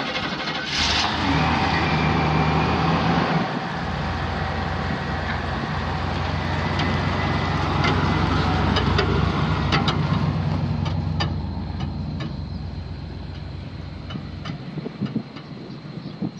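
Gasoline V8 of a 1990 Chevrolet 3500 pickup, 7.4 litres, starting about a second in and then running at a steady idle. A few light ticks sound around ten seconds in, and the engine gets quieter over the last few seconds.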